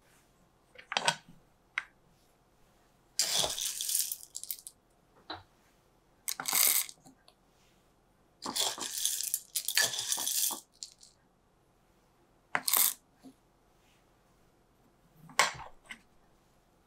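Kalita hand coffee grinder's cast-iron hopper being opened, filled and shut: the metal lid clinks and coffee beans rattle into the hopper in several separate short bursts, with quiet between.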